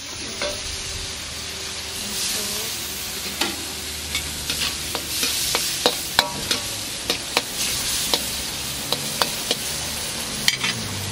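Squid and long beans frying in sauce in a hot wok, sizzling steadily while a metal wok turner stirs them. From about three seconds in, the turner clacks and scrapes against the wok about twice a second.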